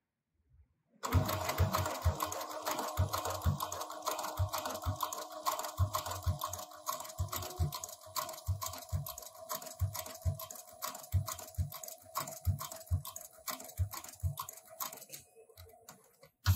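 HighTex 204-370-PRO post-bed twin-needle sewing machine starts about a second in and stitches thick thread through leather. It makes a fast, steady clatter of needle strokes over a steady motor whine, with irregular low knocks. It stops near the end, and a single thump follows.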